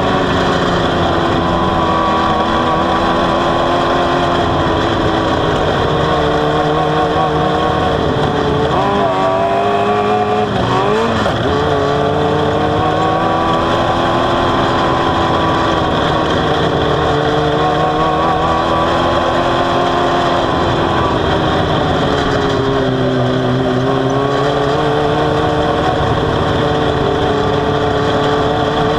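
Onboard sound of a small open-wheel dirt-track race car's engine running hard at high revs. Its pitch drops sharply and climbs back about ten seconds in, and sags and rises again more gently near the end as the driver lifts and gets back on the throttle.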